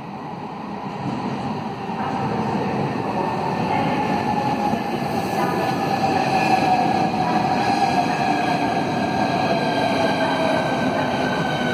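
Southeastern Class 395 Javelin electric multiple unit running in along the platform, growing louder as it nears: a rumble of wheels on rail with an electric whine that falls slowly in pitch as the train slows.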